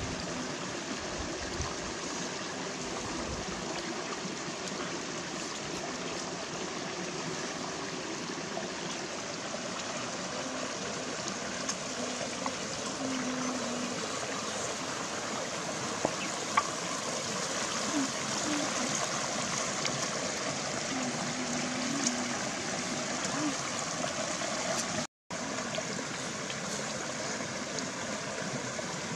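Steady rush of a shallow rocky stream running over stones. A couple of faint sharp clicks come about sixteen seconds in, and the sound breaks off for an instant near the end.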